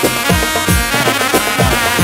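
Instrumental interlude on an electronic keyboard: a busy melody over a steady beat of deep drum hits.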